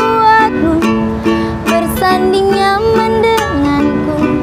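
Acoustic plucked string instruments strumming chords and picking a melody in the song's instrumental intro, with no singing yet.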